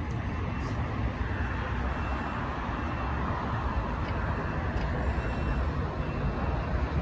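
Steady low rumble of distant traffic and airport noise, swelling slightly about a second in, with a vehicle's reversing beeper sounding about once a second.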